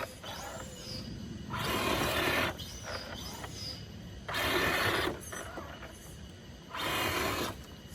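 Small electric motor of a radio-controlled off-road crawler running in three short bursts, each about a second long.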